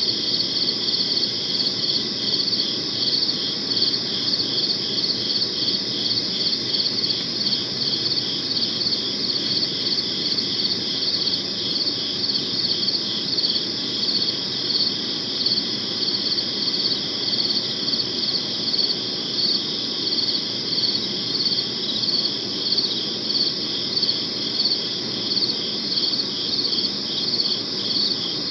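Crickets chirping steadily in a continuous chorus, the chirps pulsing in a fast, even rhythm, over a soft low background noise.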